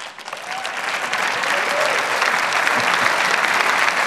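Large audience applauding. The clapping swells over the first second, then holds steady.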